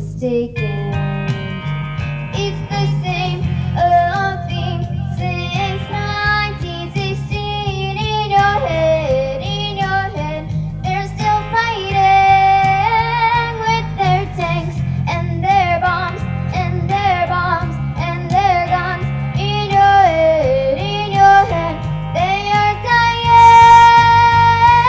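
Music: a high voice sings a melody over guitar and a steady low accompaniment, ending on a long held note near the end.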